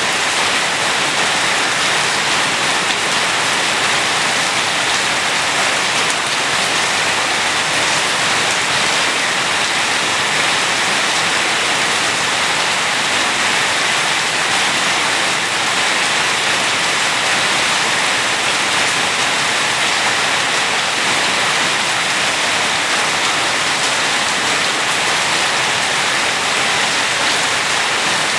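Steady heavy rain falling, an even hiss of drops on hard surfaces that holds level throughout.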